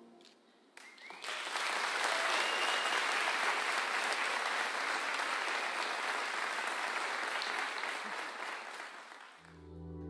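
Concert audience applauding at the end of a song, starting about a second in and fading away near the end. Soft sustained music comes in as the applause dies.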